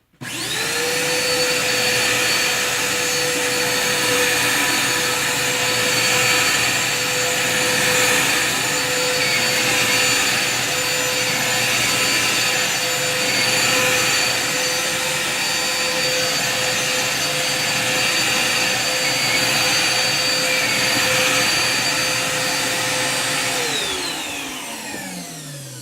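Vacuum cleaner switched on with a sudden start, running with a steady, loud, high whine. Near the end it is switched off and the motor spins down, its pitch falling away.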